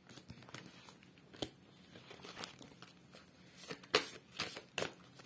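A deck of cards being handled: soft rustling with scattered light clicks and taps, growing into a few sharper clicks in the last second and a half.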